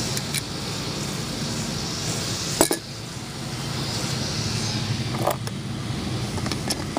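A steady low mechanical hum with a handful of small metallic clinks and clicks from parts or tools being handled, the sharpest about two and a half seconds in.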